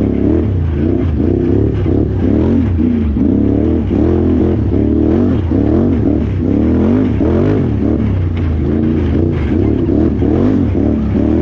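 Can-Am Renegade XXC 1000R ATV's V-twin engine under race throttle, its pitch rising and falling over and over as the rider works the throttle on and off.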